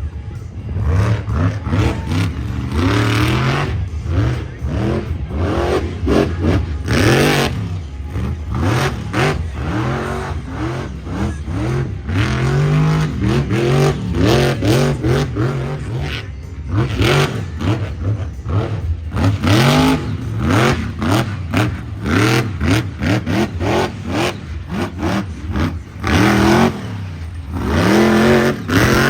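Monster truck engine revving hard over and over, its pitch climbing and dropping in quick repeated sweeps as the truck is driven through a freestyle run.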